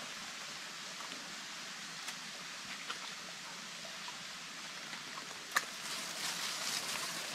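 Shallow forest stream trickling steadily, with scattered small clicks. About five and a half seconds in there is a sharp click, then louder splashing as a wader moves hands and feet in the water.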